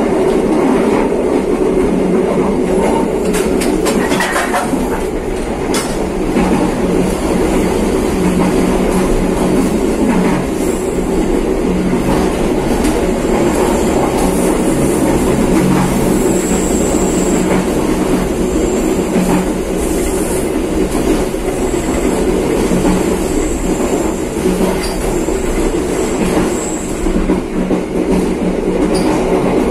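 Passenger train cars running along the rails with a steady rumble and the clickety-clack of wheels over rail joints. A faint high wheel squeal comes and goes in the middle of the stretch as the train rounds curves.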